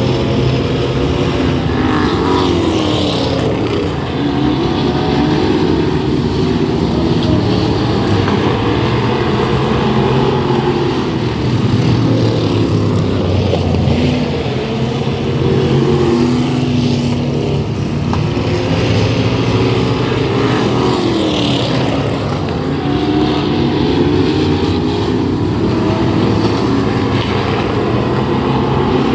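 Several race car engines running at racing speed, their pitch rising and falling in overlapping waves as cars pass and rev through the turns.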